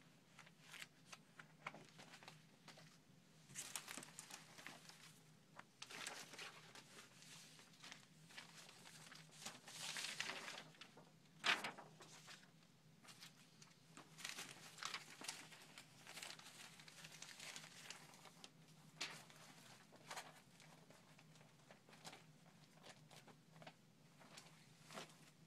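Old paper clippings, photos and magazine pages rustling and sliding as they are leafed through by hand: a string of short, soft swishes, the loudest about ten seconds in, followed by a sharp tap. A faint low hum lies underneath.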